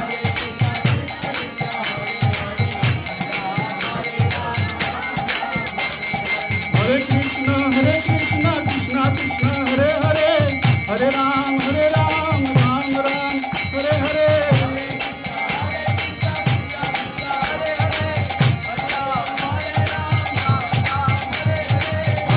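Devotional kirtan music: a steady hand-drum beat with jingling hand cymbals, and a voice singing a melody that comes in about seven seconds in.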